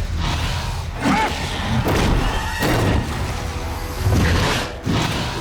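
Film soundtrack mix: dramatic score music with several heavy thuds and crashes of on-screen action.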